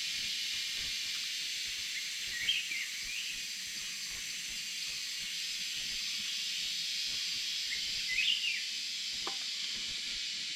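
Forest ambience at dusk: a steady high buzz of insects, with two short, quick chirping bird calls, one about two and a half seconds in and one about eight seconds in.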